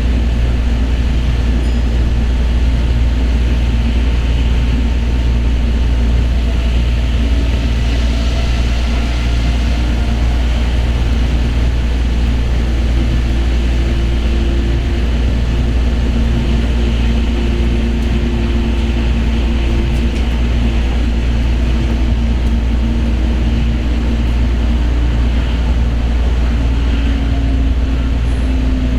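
Steady running noise inside an Osaka Monorail car between stations: a deep, even rumble from the rubber tyres on the concrete track beam, with faint humming tones from the drive that drift slightly in pitch.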